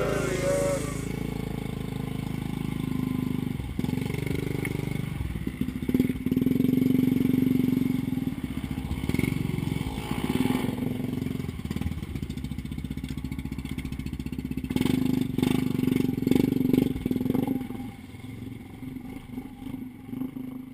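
Snorkelled Yamaha Grizzly 550 ATV's single-cylinder engine running under load through deep marsh water, the throttle rising and falling, with water splashing around the machine. The engine drops back near the end.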